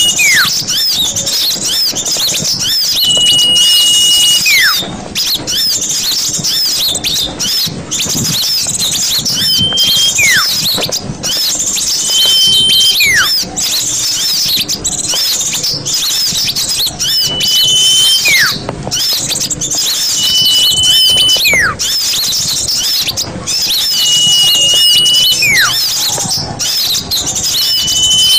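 Small-bird lure recording: a dense, continuous chatter of high-pitched chirps, over which a whistled call repeats roughly every three seconds — a level whistle held about a second, then a quick downward slur.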